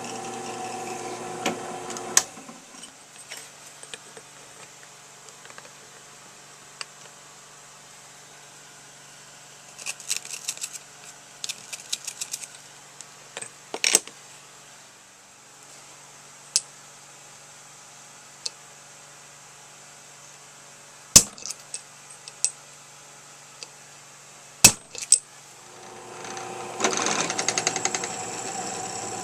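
A shop machine tool's motor runs steadily, then spins down and stops about two seconds in. Metal tools and parts are then handled with small clinks and a few sharp metallic knocks. The machine starts up and runs again near the end.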